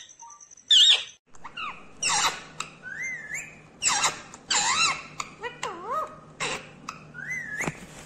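Rose-ringed parakeet calling: a quick string of short whistled calls, each bending up and down in pitch, about two a second.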